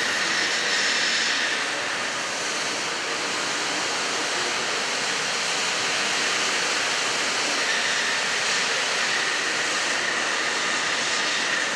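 Droop & Rein D 175 V horizontal boring and milling machine running: a steady mechanical whirr with a faint high whine during the first second or so and again from about two-thirds in.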